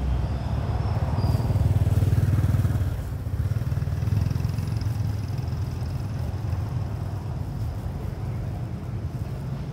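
A motor vehicle engine running nearby, a low pulsing rumble that swells about a second in, eases off around three seconds in, then carries on steadily.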